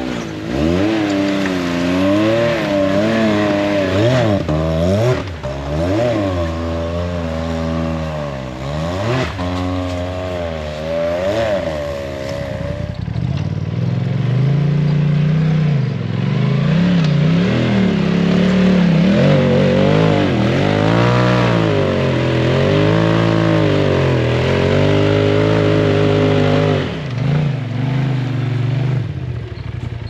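Side-by-side UTV engine revving up and down over and over, its pitch rising and falling every second or two as the throttle is worked. About halfway through the note drops lower and runs heavier, still rising and falling.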